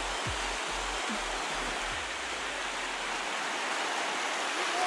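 Ocean surf breaking and washing in a steady rush of noise.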